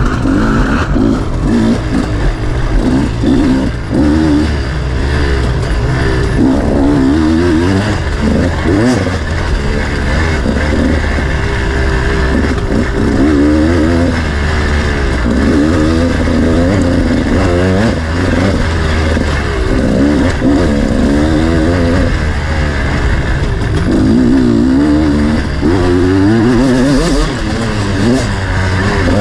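Off-road dirt bike engine revving up and down over and over, its pitch rising and falling every second or two as the throttle is worked and gears change through the race course.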